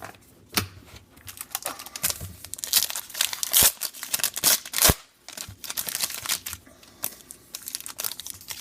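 Trading card pack wrapper being torn open and crinkled, a run of crackling rustles that is densest in the middle, with two sharp snaps a little past halfway.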